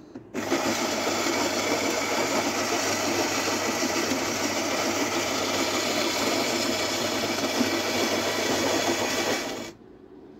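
Philips EP2224 bean-to-cup espresso machine's built-in ceramic burr grinder grinding beans for a shot, a loud steady grinding that starts about half a second in and stops sharply near the end.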